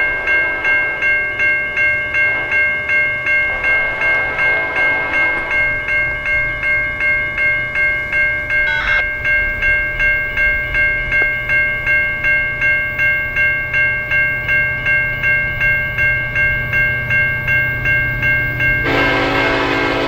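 Railroad grade crossing bell ringing steadily, about two strikes a second, as a CN freight train led by EMD diesel locomotives approaches. The locomotive horn sounds faintly about four seconds in and loudly about a second before the end, over a low rumble that grows as the train nears.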